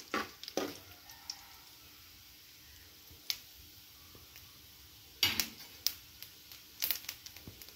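Mustard seeds and urad dal in hot oil in a kadhai: a faint sizzle with about half a dozen scattered sharp pops as the mustard seeds begin to splutter, the sign that the tempering oil is hot enough.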